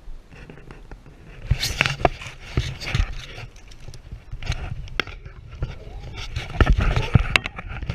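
Water splashing and sloshing as a hooked fish thrashes at the surface, with irregular sharp knocks and clicks.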